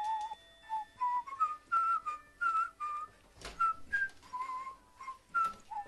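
Background music carried by a whistled melody: a steady run of short, bouncy notes stepping up and down in pitch.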